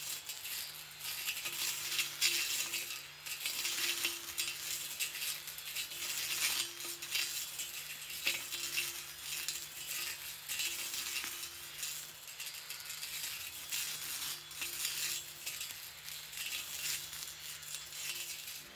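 Makita MUR010 40 V battery brush cutter with a Tsumura two-blade 305 mm blade cutting undergrowth: a low electric-motor hum that comes and goes every second or two, under constant crackling and ticking of the blade hitting grass stems and twigs.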